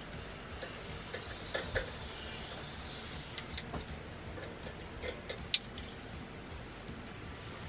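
Metal tongs clicking and tapping against a charcoal grill's grate and a plate as meat is laid on the grill, with one sharp clack a little past halfway. Birds chirp faintly in the background.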